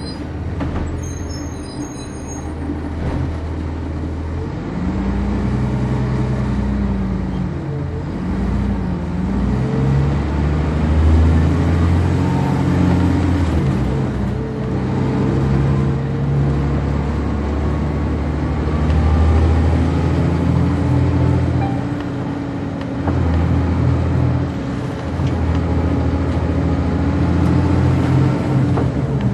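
Cummins ISC inline-six diesel engine and ZF Ecomat automatic transmission of a 1999 NovaBus RTS transit bus, heard from inside the bus while driving. The engine note rises and falls repeatedly as the bus accelerates, shifts and slows, with a faint whine above it.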